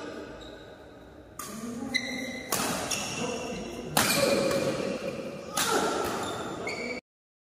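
Badminton rackets striking a shuttlecock in a rally: four sharp hits about a second and a half apart, each echoing in the hall. The sound cuts off suddenly near the end.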